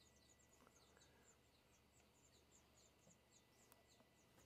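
Near silence, with faint high chirping repeated several times a second in the background.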